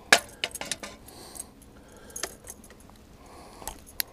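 Metal fishing pliers clicking and clinking against the hook and lure while unhooking a redfish. It is a string of sharp clicks: the loudest comes right at the start, with a quick cluster after it and a few single clicks spread through the rest.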